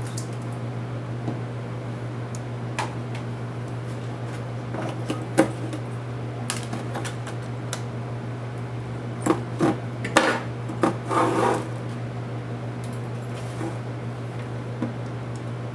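Scattered small clicks and knocks of plastic and metal laptop parts and screws being handled during disassembly, with a brief flurry about two-thirds of the way in, over a steady low hum.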